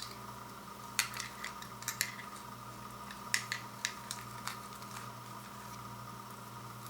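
Several sharp light clicks and taps of small hard objects being handled, bunched about a second in and again around three to four and a half seconds in, over a steady electrical hum.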